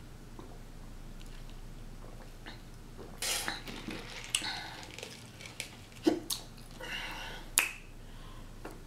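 Close-miked eating and drinking noises: scattered mouth smacks and a few sharp clicks from a plastic drink cup being handled, loudest a little after six and seven and a half seconds in.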